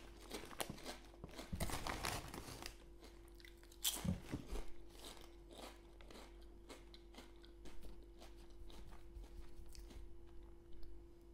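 A person biting into and chewing a Lorenz Crunchips cheese and onion potato chip: crisp crunching cracks, thick for the first few seconds with another burst about four seconds in, then thinning out as the chip is chewed down.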